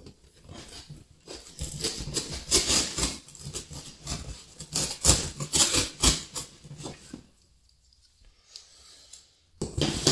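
Cardboard shipping box being slit and torn open with a thin blade: a run of irregular scraping, rustling and sharp crackles of cardboard. It pauses for about two seconds near the end, then the cardboard is handled loudly again.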